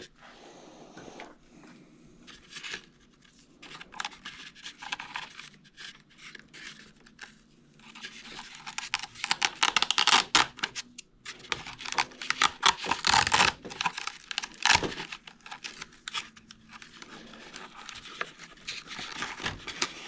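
Close handling of plastic parts and wiring: rustling, scratching and small clicks as battery adapter plugs are fitted together, busiest around the middle.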